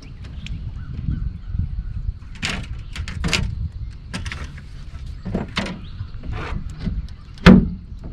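Scattered knocks and clatters on a bass boat's deck as a landed bass is handled, ending in one heavy thump about seven and a half seconds in, over a low steady rumble.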